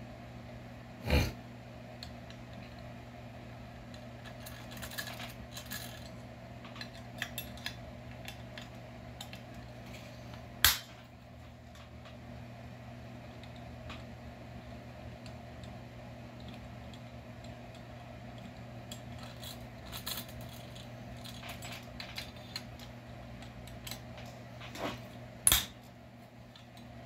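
Hand tools and small metal parts clinking and clattering as a chainsaw is taken apart, with three sharp knocks (about a second in, near the middle, near the end) and scattered lighter ticks over a steady low hum.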